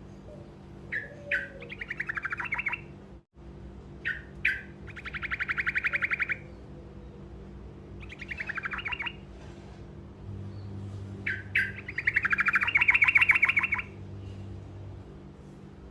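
Yellow-vented bulbul (trucukan) singing its short rolling song: bursts of rapid repeated notes several seconds apart, the longest and loudest near the end, over a faint steady low hum.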